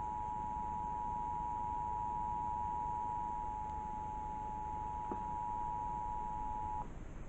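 Emergency Alert System two-tone attention signal: two steady tones (853 Hz and 960 Hz) sounding together, cutting off suddenly near the end. It announces an EAS alert, here the required monthly test.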